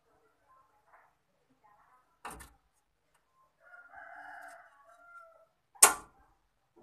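Two sharp metallic knocks from a car's front suspension, the second much louder. It comes as the steering knuckle swings free at the upper ball joint. Between the knocks, a rooster crows once.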